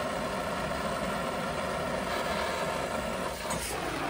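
Brazing torch burning steadily with a continuous rushing hiss as it heats a large copper refrigerant joint at a heat pump compressor. Near the end the tone of the rush sweeps downward.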